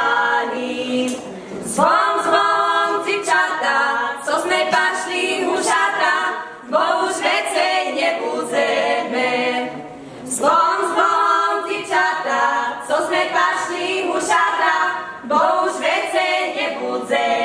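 A small group of young women singing a Slovak folk wedding song for the čepčenie (the bride's capping) unaccompanied, in phrases a few seconds long with short breaks between them.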